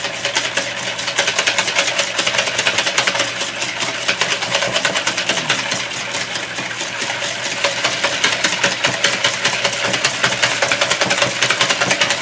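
Hand whisk beating a mixture in a plastic mixing bowl: a fast, steady run of clicking and scraping strokes against the bowl.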